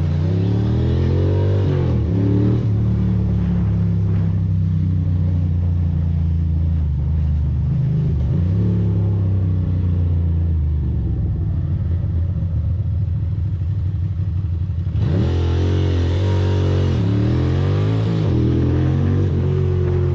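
Ducati Monster's L-twin engine running on the move, its revs rising and falling in short sweeps during the first couple of seconds, holding steady through the middle, then sweeping up and down again from about three-quarters of the way in as a rushing hiss comes up.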